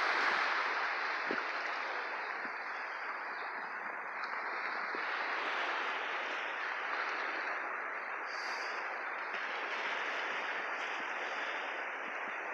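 Steady hiss of small waves washing onto the shore, mixed with wind.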